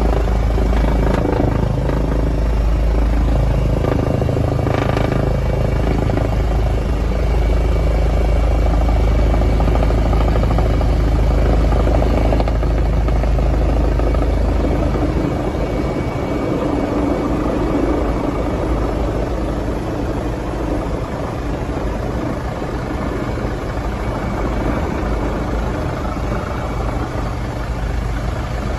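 Helicopter engine and rotor noise heard from inside the cabin, a steady loud drone with a strong low rumble that eases a little about halfway through.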